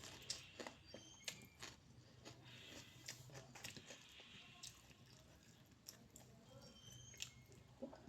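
A person chewing food close to the microphone: quiet, irregular wet mouth clicks and smacks.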